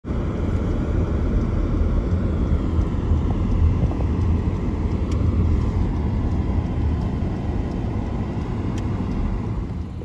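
A car driving along a road, recorded from inside the vehicle: a steady low rumble of road and wind noise that eases slightly near the end.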